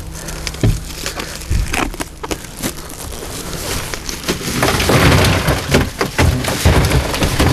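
Bagged ice being broken up and tipped in to make an ice slurry for chilling fish: a run of cracks and knocks, then a denser crunching rattle from about four seconds in.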